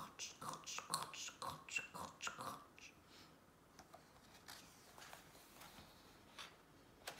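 A regular run of soft mouth sounds from the reader, about two a second with a hiss in each, stopping about two and a half seconds in. Then the quiet handling of a picture book's paper page, turned over near the end with a brief rustle.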